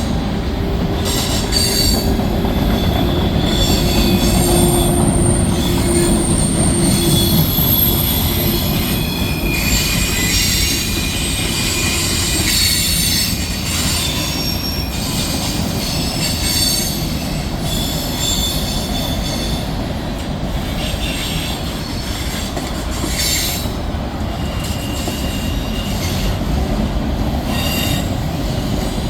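Freight train rolling by with a steady low rumble, its wheels squealing in high, thin tones that come and go again and again.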